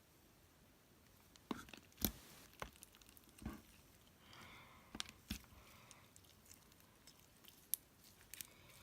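Hands kneading slime: faint, scattered sticky clicks and pops.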